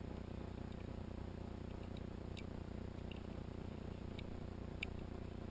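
A few faint, sharp clicks from a pistol and its magazine being handled, spread over the last few seconds with the sharpest near the end, over a steady low background noise.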